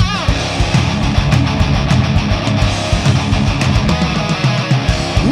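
A rock band playing live, with heavy distorted electric guitars, bass and drums in an instrumental passage, and a bent guitar note right at the start.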